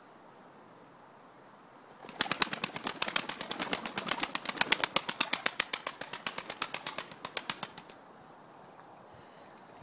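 A pigeon flapping its wings in rapid, evenly spaced beats. The flapping starts about two seconds in, runs for about six seconds and then stops.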